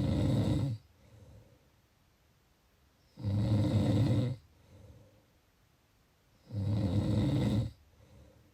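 A sleeper snoring: three loud, rough snores, each about a second long and about three seconds apart. Each is followed by a short, much softer breath.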